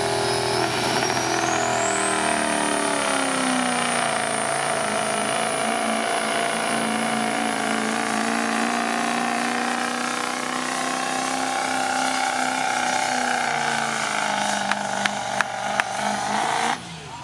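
Pulling truck's turbocharged engine running hard under load down the track, with a high turbo whistle that climbs over the first couple of seconds and then holds. The engine note drops about three seconds in, holds steady, and cuts off abruptly near the end.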